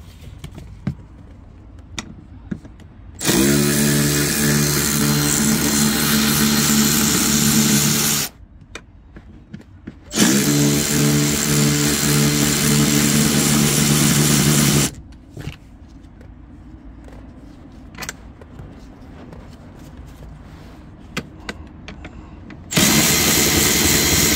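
Power drill with a T50 Torx bit unscrewing the car seat's mounting bolts: three runs of several seconds each, the motor rising in pitch as it starts and then running steady. Small clicks and knocks come between the runs.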